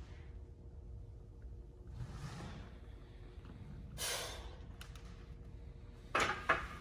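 A lifter's forceful breaths between reps of heavy barbell back squats: two sharp hissing breaths, about two seconds apart, over a low steady rumble, with a few sharp knocks near the end.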